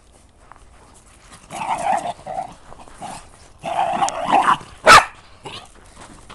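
Dog barking and growling: two rough spells about two and four seconds in, then one short, sharp bark, the loudest sound, about five seconds in.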